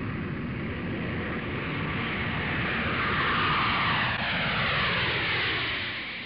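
An aircraft passing overhead: a steady rush of engine noise that swells toward the middle with a falling pitch sweep, then starts to fade near the end.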